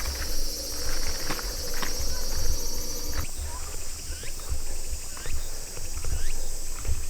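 Steady high-pitched insect buzzing with short rising bird calls in the second half, over footsteps and low wind rumble on the microphone. The insect sound changes abruptly about three seconds in.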